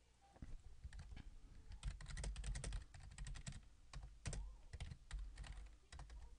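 Computer keyboard being typed on, faint, in short uneven runs of keystrokes with brief pauses, the densest run about two seconds in.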